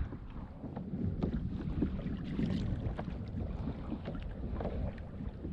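Wind noise on the microphone over water lapping against a kayak hull, with a few light knocks.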